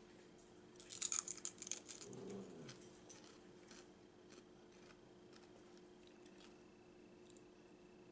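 A crunchy fried taquito being bitten and chewed: a burst of crisp crackling about a second in that lasts about two seconds, then a few scattered soft clicks.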